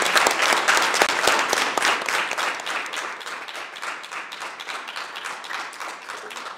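Audience applause, many people clapping; loudest at first, then gradually dying down.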